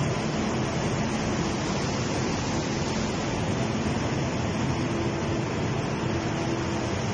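100 kVA silent LPG gas generator running steadily during a full-load test: a constant rushing noise with a faint low hum under it.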